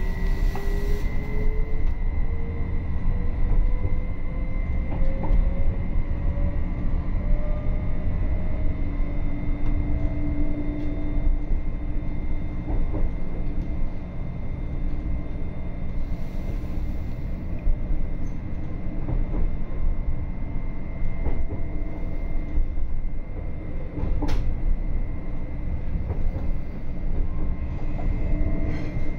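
Inside a Südostbahn RABe 526 electric multiple unit pulling out of the station: the traction motors' whine rises steadily in pitch for the first several seconds as the train gathers speed. Underneath is a steady low rumble of wheels on track, with a few sharp clicks and knocks as it runs over the points.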